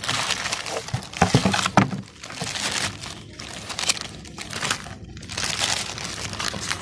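Plastic wrapping crinkling and cardboard packaging rustling as hands unpack a new clutch disc from its box, an irregular crackle throughout.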